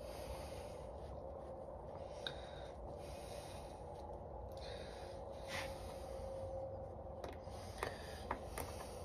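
Quiet room tone with a faint steady hum, and a few faint clicks and rubs of hands working a round magnet and a glued dog-collar strip on a wooden bench.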